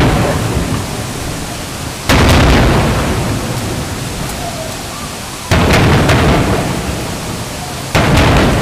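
Aerial firework shells bursting: three loud booms a few seconds apart, each trailing off in a long rolling rumble that dies away.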